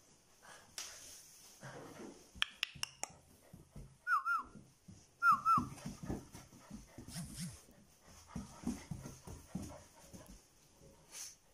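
Puppies and a dog playing rough together: two short, high whimpering yelps about four and five and a half seconds in, among scuffling, a few sharp clicks and short low grunting noises.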